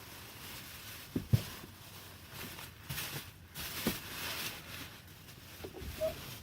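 Hands fitting and handling equipment parts: a few light knocks, the sharpest about a second in, with rustling in between.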